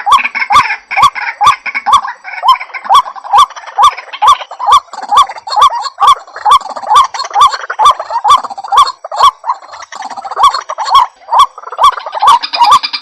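White-breasted waterhen calling: one hooked, monotonous note repeated about twice a second, with sharp clicks between the notes.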